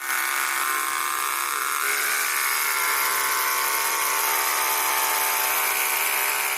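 Small electric power-tool motor running steadily at high speed, a constant high whine with a hiss.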